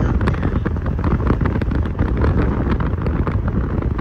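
Wind buffeting a phone microphone held out of a moving car's side, over steady low road rumble, with frequent short crackles from the wind hitting the mic.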